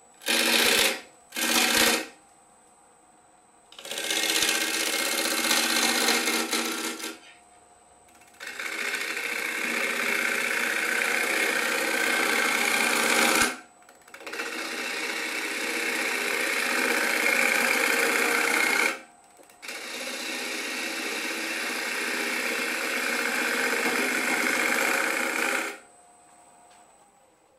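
Bowl gouge cutting into a spinning elm bowl blank on a wood lathe, throwing shavings: two quick cuts, then four long cutting passes of several seconds each, with short pauses between them where only a faint steady high whine remains.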